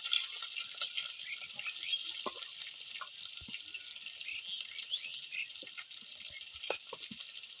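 Sliced onions sizzling in hot oil in a clay pot, a steady frying hiss with small scattered crackles.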